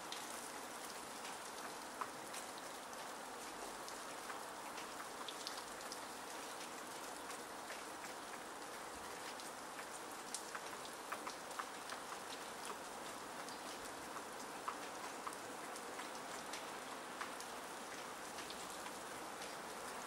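Steady hiss of falling wet snow, with many light ticks of flakes striking nearby surfaces scattered through it.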